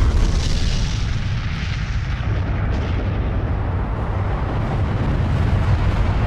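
A large explosion's long, deep rumble: a dense, steady low rumble with a hiss on top that slowly thins out.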